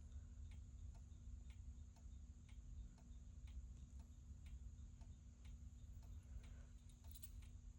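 Near silence: fire alarm horn/strobes running in strobe-only mode, with faint, evenly spaced ticks a few times a second and a steady, very high-pitched whine like a dog whistle. The owner takes the whine to come from the Gentex Commander 3.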